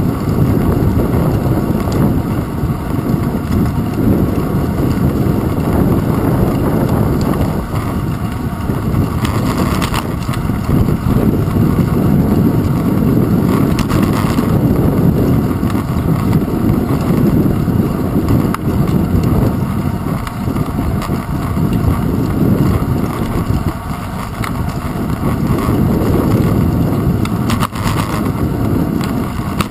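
Steady low rumble and rush of wind on a handlebar-mounted GoPro Hero 2 as a bicycle rolls along a paved path, mixed with tyre and handlebar vibration noise, with a few faint knocks from bumps in the path.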